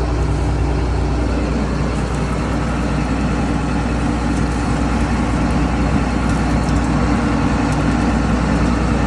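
Combine harvester running steadily, a constant engine and machinery drone with a low hum and a steady mid-pitched tone.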